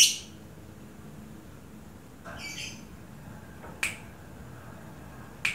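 Caged lovebird giving a few short, sharp, high-pitched chirps a second or two apart: a loud one at the start, one about two and a half seconds in, one near four seconds and one at the end, with no sustained chattering song between them.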